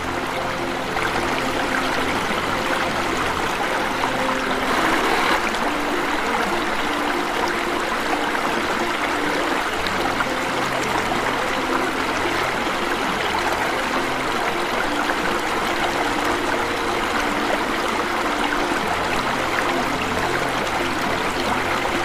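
Steady rushing and splashing of a small waterfall pouring into a stream, swelling briefly about five seconds in.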